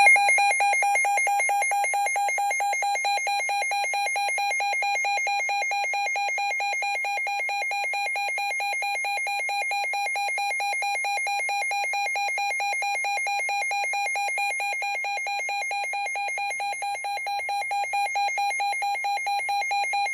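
NOAA weather radio alert alarm sounding for a tornado warning: one loud, high-pitched tone rapidly pulsing on and off, without a break.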